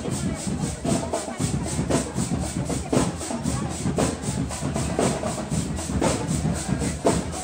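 Marching band playing percussion-led music with a steady beat: a strong drum stroke about once a second over a quicker, high-pitched rattle.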